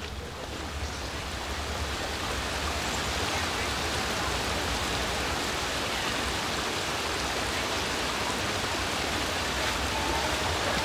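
Steady rush of flowing stream water, growing louder over the first two seconds and then holding even.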